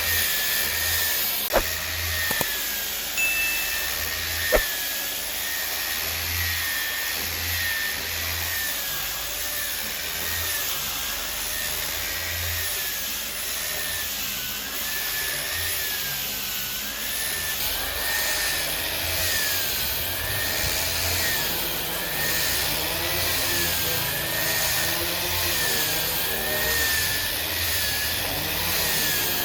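A power woodworking machine running steadily, with a whining tone that wavers up and down about once a second. There are a few sharp knocks in the first five seconds.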